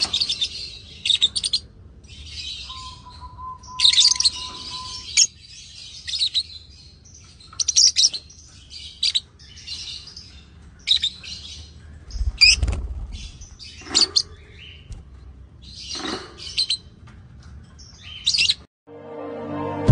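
Lovebirds chirping: irregular bursts of high-pitched chirps and squeaks with short pauses between them. A faint steady tone is heard for about two seconds starting about three seconds in.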